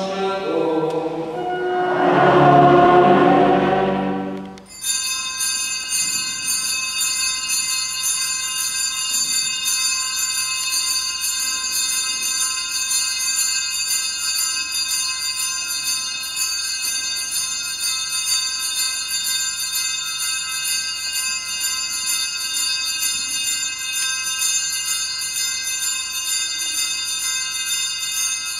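Church singing ends abruptly about five seconds in. A set of small altar bells then rings continuously and evenly, the peal sounded while all kneel before the monstrance at the blessing with the Blessed Sacrament.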